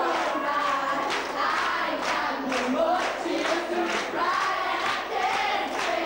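A crowd of young voices singing along together, one of them into a microphone, over a steady beat.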